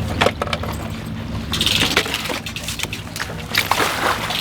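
An engine idling with a steady low hum, under scattered knocks and clicks; a hissing noise comes in about a second and a half in and carries on.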